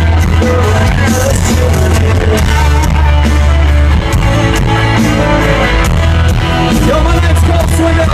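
Live country rock band playing loudly, with strong bass, electric guitar and drums and cymbals, heard through a crowd recording.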